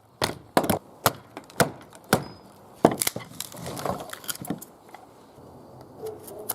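A dry branch being chopped and split with a blade: about six sharp woody knocks in the first three seconds, then softer knocking and scraping as the wood is worked down into a hearthboard.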